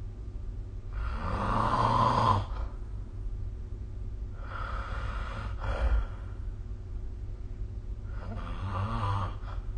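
A sleeping person snoring: three snores about three and a half seconds apart, the first the loudest, over a steady low hum.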